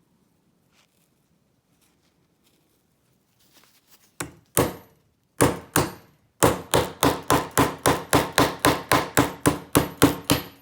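Hammer blows driving a blade into the plastic body of a Federal lockout padlock to split it open. There are a few separate knocks, then a steady run of quick strikes, about five a second.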